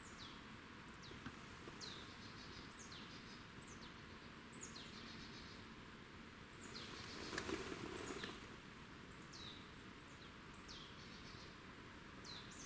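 A small bird giving faint, high, thin call notes, each falling sharply in pitch, about one a second, over a soft hiss of forest ambience. About seven and a half seconds in there is a brief louder rustle.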